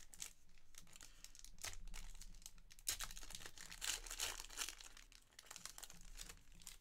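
Foil wrapper of a Panini Revolution basketball card pack being torn open and crinkled by hand: an irregular run of crackling with a sharp snap about three seconds in.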